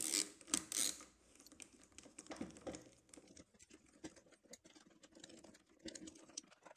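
Hand screwdriver undoing the screws on a table saw's switch box: a run of small clicks, scrapes and taps, the loudest in the first second.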